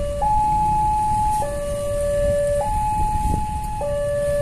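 Railway level-crossing warning alarm sounding a two-tone hi-lo signal, alternating between a higher and a lower tone, each held a little over a second: the crossing is warning of an approaching train.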